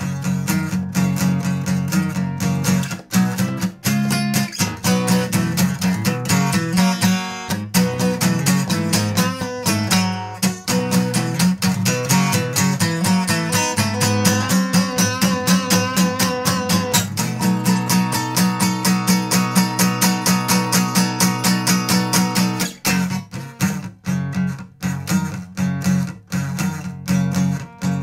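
A solo guitar plays an instrumental break: rhythmic strumming with a picked melody line. The last few seconds thin out into sparser, separate strokes.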